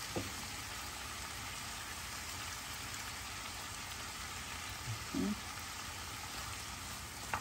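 Sofrito of diced tomato, carrot, celery, bell pepper and onion sizzling steadily in a frying pan.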